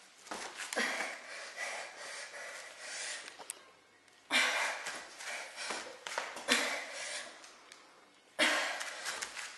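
A woman breathing hard and panting during strenuous exercise, the heavy breaths coming in strong surges about every four seconds.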